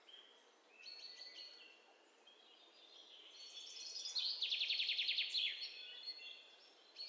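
Small birds chirping and whistling in short high calls, with a fast rapid trill about four seconds in that is the loudest sound.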